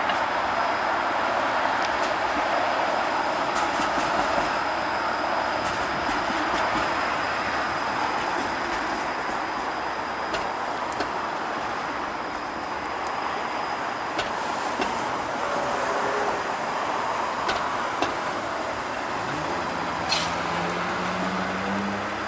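Toronto Transit Commission Flexity Outlook streetcar rolling along its track: a steady rumble of wheels on rail with scattered sharp clicks and a thin, high, steady whine. Near the end a low hum rises in pitch.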